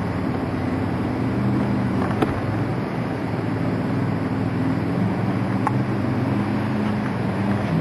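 Off-road truck engine running steadily at low revs, with a couple of faint sharp clicks about two and six seconds in.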